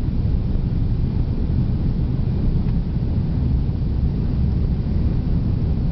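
Cabin noise inside a McDonnell Douglas DC-10-30 on the ground: a steady low rumble from its General Electric CF6 engines and the airframe rolling along.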